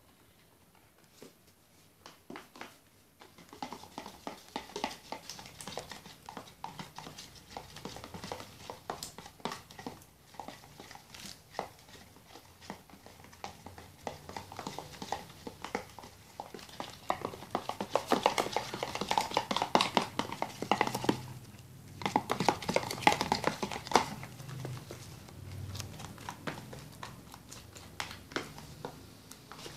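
Spoons stirring homemade glue slime in plastic tubs: a dense run of small sticky clicks and squelches with spoon taps on the plastic. It starts a few seconds in and grows busier, with a brief pause about two-thirds through.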